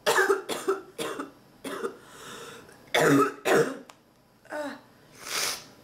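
A sick woman coughing in a fit of about seven harsh coughs in short clusters, part of the constant coughing of her illness. Near the end comes a noisy breath.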